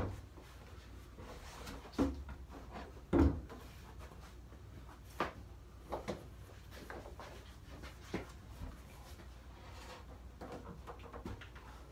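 Wooden knocks and thumps as a large knotty pine tabletop is handled and shifted against its wooden base, about eight of them scattered through, the loudest a little after three seconds in, over a steady low hum.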